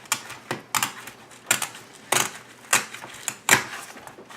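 Repeated sharp cracking clicks, about one every two-thirds of a second, as the glued fabric spider of a Mach 460 car speaker is pulled and torn apart from the speaker frame.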